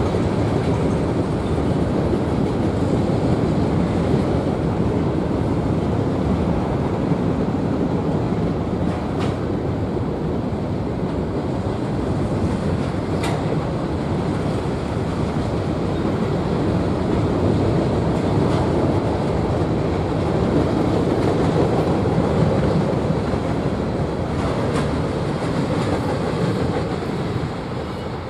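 Freight cars of a Norfolk Southern manifest train, mostly covered hoppers, rolling past close by: a steady rumble of steel wheels on the rails, with a few brief high clicks from the wheels and rail joints. It eases slightly near the end.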